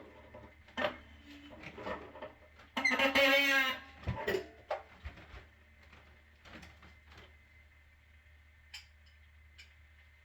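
Handling clicks and knocks while working on the plumbing, with one loud squeak with a wavering pitch lasting about a second around three seconds in, then a few fainter taps; a steady low hum underneath.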